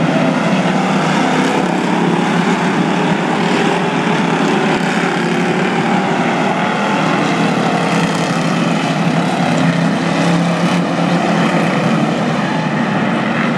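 A pack of V8 enduro stock cars racing around an oval track, many engines running together in a loud, steady din, their notes drifting up and down as cars pass.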